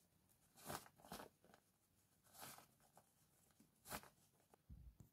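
Faint rustling of satin and cotton fabric being bunched and pulled along elastic inside a bonnet casing, in about five short swishes with a soft low thump near the end.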